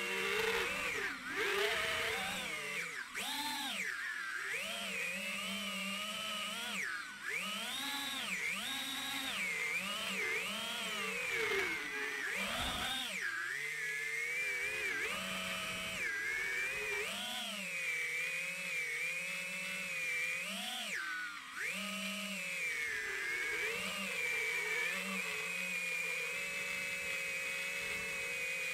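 FPV quadcopter's iFlight 2207 2450kv brushless motors whining, the pitch swooping up and down with each throttle change, then holding a steadier note near the end.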